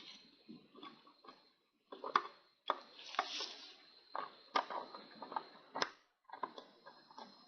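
Irregular light clicks, taps and short scrapes of watch-repair hand tools on small metal watch parts, over a faint steady high whine. The sound cuts out abruptly a few times.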